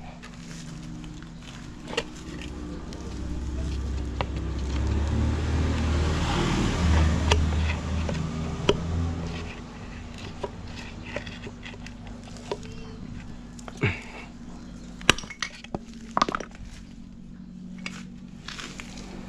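Metal-on-metal clinks and knocks of hand tools on engine parts during an engine teardown, over a steady low hum. A low rumble swells and fades in the middle.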